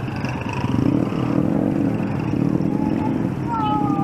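Street noise dominated by the rough, steady rumble of a motor vehicle's engine running close by, growing louder about a second in. A brief two-pitched tone, falling slightly, sounds near the end.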